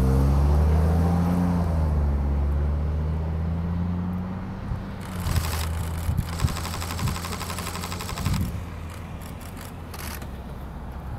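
A vehicle engine passing close by, its pitch dropping steeply at the start, then a steady low hum that fades away over several seconds. About five seconds in, a rapid high ticking buzz runs for about three seconds, with another short burst near the end.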